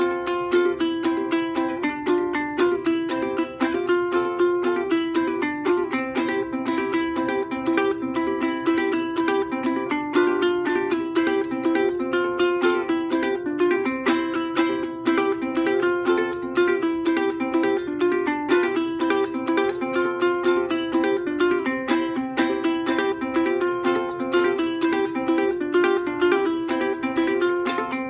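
National Reso-Phonic soprano resonator ukulele played clawhammer style: a steady, quick run of brushed and plucked notes on a simple three-chord fiddle tune, with a bright metallic ring.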